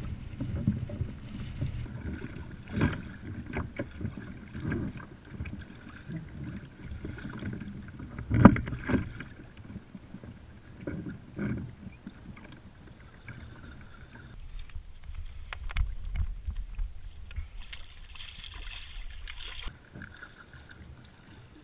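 Choppy water slapping against a fishing kayak's hull, with scattered knocks and clatter from handling gear; the loudest knock comes about eight seconds in. Near the end a hooked striped bass splashes at the surface beside the kayak.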